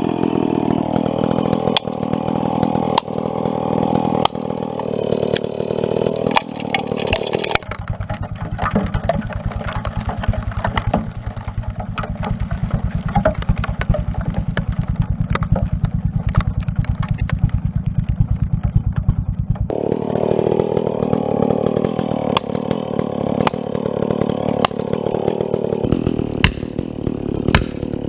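Two-stroke chainsaw running under load while cutting through a tree, its engine pitch wavering up and down as the chain bites. In the middle stretch it runs steadier and lower with an even pulsing note, then goes back to wavering under load.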